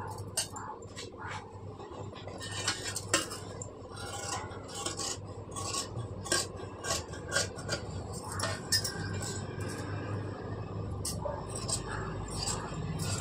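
Tailor's scissors cutting through folded blouse fabric on a stone counter: a run of irregular metallic snips and clicks as the blades close and reopen.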